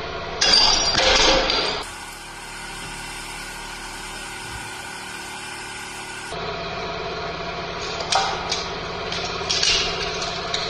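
Hydraulic press crushing glass. A loud shattering of glass comes about half a second in, then a steady hum of the press for a few seconds. Near the end, glass cracks and crunches in several sharp clicks under the ram.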